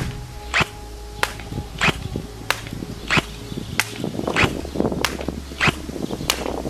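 ARES AR308M airsoft electric gun (AEG) firing single shots on semi-auto, a sharp snap about every 0.6 s as its V2 gearbox cycles on an 11.1 V LiPo battery.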